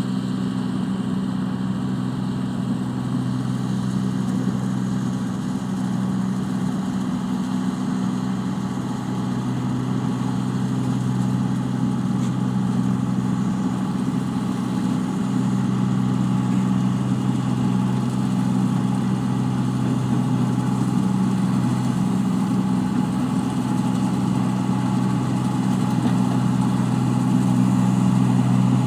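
Engine of a rice-paddy machine running steadily with a low, even hum, growing slightly louder in the second half.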